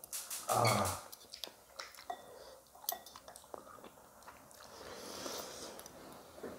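A person eating with wooden chopsticks: chewing and biting, with light clicks of the chopsticks against a ceramic bowl, most of them near the start.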